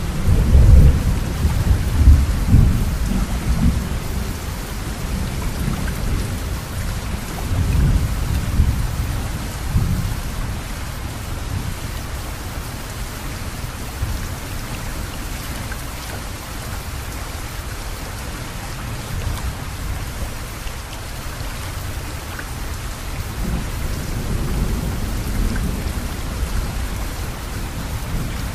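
Steady hiss of rain, with loud, low rumbling swells in the first few seconds, again around eight to ten seconds in, and near the end.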